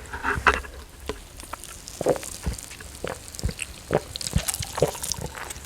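Close-up sipping and swallowing of Coca-Cola from a can: a series of short gulps, one about every half second.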